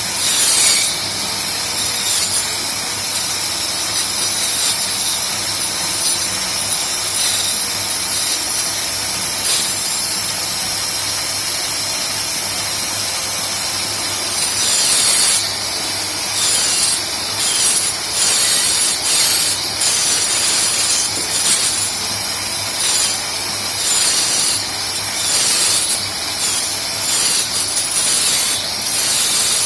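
Homemade wood copying machine cutting wood: a power-tool motor runs with a steady high whine, and from about halfway it bites into the workpiece in repeated louder cuts, roughly one a second.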